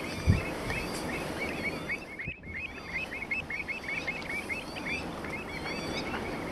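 Pied avocets calling: a rapid run of short, clear, hooked notes, about five a second, from about a second in until past the middle, over steady low background noise. A single low thump sounds just after the start.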